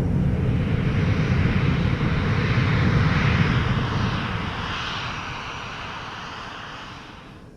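Aircraft engine sound effect: a low rumble with a rushing noise that swells and then fades away as the plane passes, cut off abruptly near the end.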